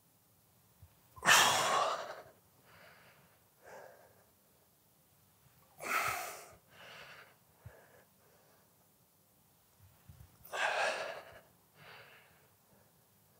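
A man breathing hard through reps of a dumbbell single-leg Romanian deadlift: three loud, sharp breaths about four to five seconds apart, one with each rep, each followed by a few quieter breaths.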